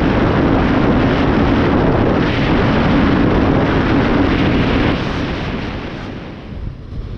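Heavy wind rush on the microphone over a Kawasaki ZX-10RR's inline-four engine running steadily at high speed. About five seconds in it cuts off, giving way to much quieter road ambience.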